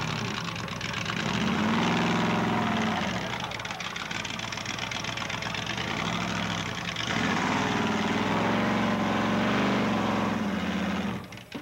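Engine of a lifted 4x4 pickup on giant tires, running under load as the truck climbs onto a junk car and crushes it. It revs up twice, each time held for a couple of seconds. The sound drops out briefly near the end.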